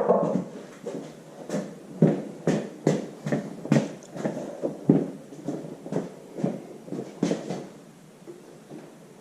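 Irregular knocks and clunks, a dozen or more, as the Farmall Super MTA engine is wiggled by hand against the transmission to line its shaft up, fading out near the end.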